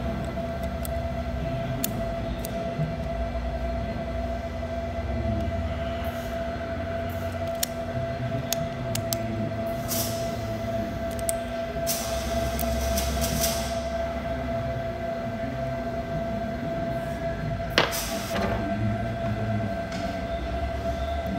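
Steady workshop background hum with a held droning tone over a low rumble. Light clicks of the piston seals and parts being handled, and one sharp click a little before the end.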